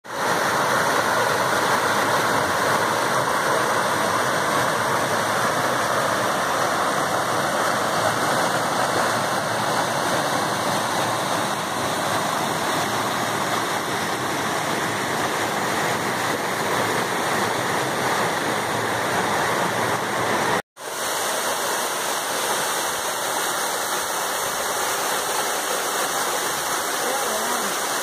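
Mountain stream and waterfall water rushing over rocks in a steady, even rush, broken for an instant about two-thirds of the way through.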